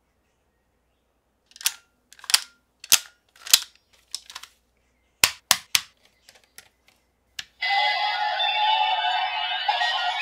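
Sharp plastic clicks, about eight loud ones and a few lighter ones, as the hinged panels of a DX Arc Ariser transformation toy are opened and snapped shut. About three-quarters of the way in, the toy is switched on and its speaker starts playing its electronic activation sound.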